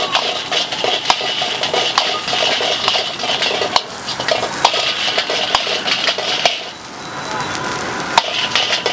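Metal ladle scraping and clanking against a steel wok while rice is stir-fried, with many sharp knocks over a steady hiss. The hiss drops away briefly about seven seconds in.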